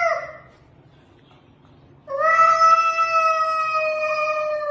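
A cat yowling. The tail of one call fades away at the start. About two seconds in, a long drawn-out yowl begins and sinks slightly in pitch as it goes on.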